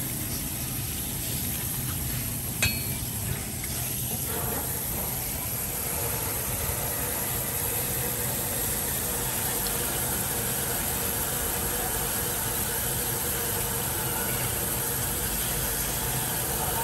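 Tap water running steadily onto a cutting board while a cleaver cuts through king crab, with one sharp knock about two and a half seconds in.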